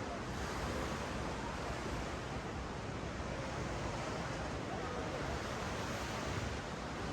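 Ocean surf washing up and down a sandy beach in a steady, even hiss.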